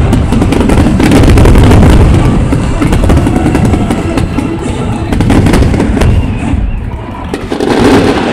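Fireworks finale: a rapid barrage of aerial shells bursting and crackling on top of each other over a heavy low rumble, loudest in the first couple of seconds and thinning somewhat toward the end.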